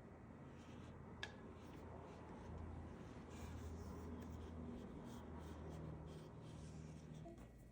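Faint rubbing and scraping of macrame cord being wrapped around a scratching post, with a sharp click about a second in.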